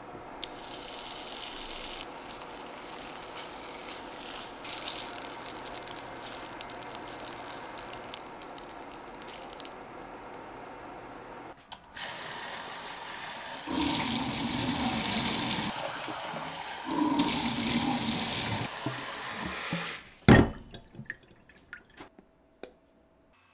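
Kitchen tap running into a stainless-steel sink, then splashing into a small saucepan held under the spray, louder while it fills the pot. Near the end the water stops and a single loud knock follows, then a few small clicks.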